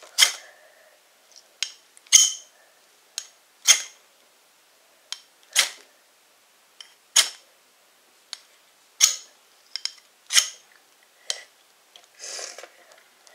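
Steel knife blade scraped hard down a ferrocerium (ferro) rod to throw sparks onto fatwood shavings. It makes about eight sharp scraping strokes, roughly one every second and a half, with lighter clicks in between.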